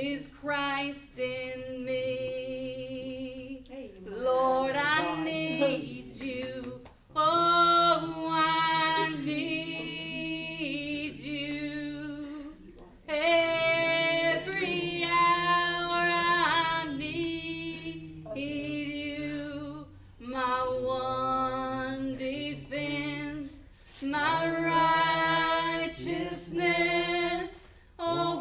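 A woman singing a slow worship song into a microphone, amplified over the hall's PA speakers, in long held phrases with short breaths between them.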